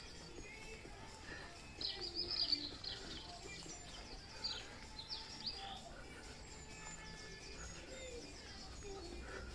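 Small birds chirping, with a quick run of high chirps about two seconds in and a few more around the middle.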